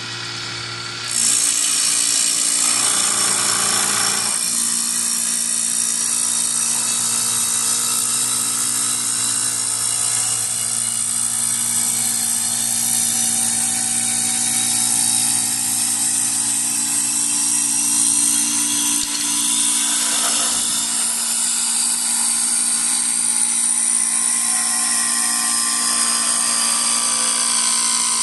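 Wood-turning lathe for chair spindles running steadily, with a hum of several held tones. About a second in, a loud high-pitched hiss comes in and continues.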